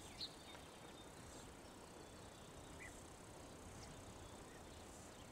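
Near silence: faint outdoor ambience with a low hiss and a couple of soft, short chirps, one just after the start and one near the middle.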